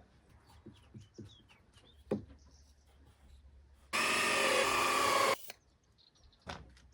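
Power drill running in one burst of about a second and a half, starting and stopping abruptly, among light knocks and clicks of wood being handled.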